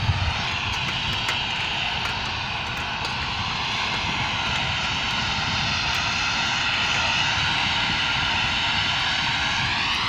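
A steady, distant engine drone with several evenly spaced tones that sag slowly and rise again near the end, over a low rumble of wind on the microphone.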